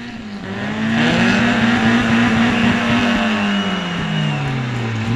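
Drift car's engine heard from the passenger seat during a slide: it picks up from a dip just at the start, climbs and holds high revs, then falls away over the last couple of seconds. A faint high whine rises over it about three seconds in.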